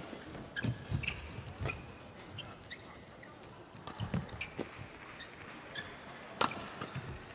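Badminton rally: rackets strike the shuttlecock with sharp cracks several times, the loudest about six and a half seconds in, while shoes squeak briefly on the court mat between shots.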